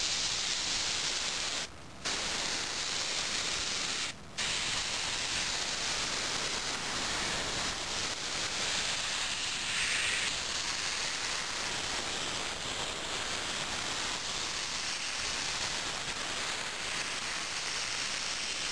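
Grex Tritium TS airbrush with a 0.5 mm nozzle spraying unthinned acrylic paint at 20 psi: a steady hiss of air and paint, cut off briefly twice in the first few seconds.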